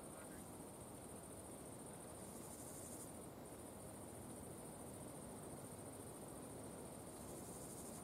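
Crickets trilling steadily at a high pitch, faint.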